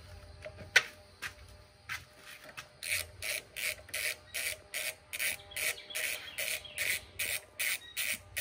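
A socket ratchet wrench being swung back and forth on a bolt, a quick burst of ratcheting clicks on each return stroke, about three strokes a second. A few single clicks and one sharp knock about a second in come before the steady ratcheting.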